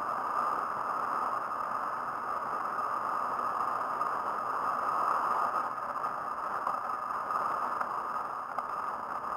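Steady rushing noise from a handbike riding at speed: wind over the onboard camera's microphone and the tyres rolling on asphalt.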